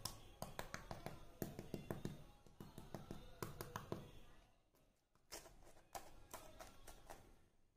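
Flaky, crisp crust of a deep-fried moong dal kachori crackling as fingers press and break into it: many small faint cracks, coming thick at first and thinning out about halfway through.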